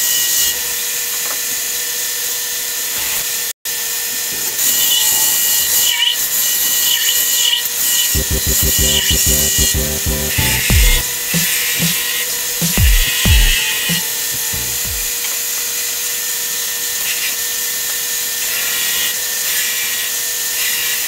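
Belt sander grinding steel: a steady hiss with background music. Several low thumps come through the middle.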